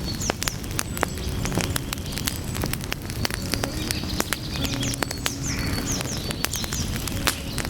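Wood fire burning steadily, with a low rush and frequent sharp crackles and pops from the burning logs. About halfway through, a quick run of short, high chirps sounds over it.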